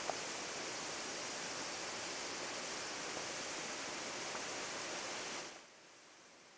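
Steady rushing of river water, dropping sharply to a much quieter hiss about five and a half seconds in.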